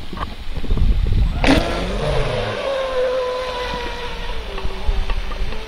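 Electric RC speedboat's 2075 kV brushless motor on 6S LiPos spinning up suddenly about a second and a half in. The boat then runs at speed with a steady high-pitched whine that slowly falls in pitch as it pulls away across the water.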